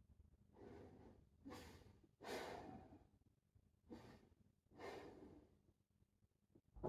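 A person breathing slowly and audibly through a deep kneeling backbend: about five soft breaths, the strongest a little over two seconds in. A soft thump near the end.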